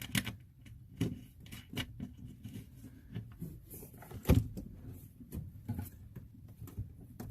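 Hands working the water pump and its mounting bolts into place: scattered light clicks and knocks of metal and plastic hardware, with one louder knock about four seconds in.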